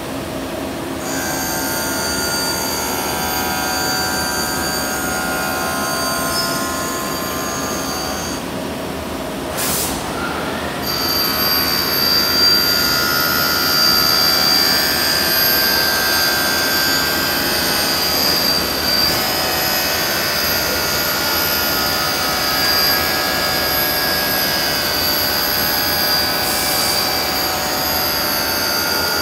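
CNC machining center milling a metal part: the spindle's steady high whine over the noise of the cutter in the metal. About nine seconds in, the whine drops out for a couple of seconds, then resumes at a slightly different pitch.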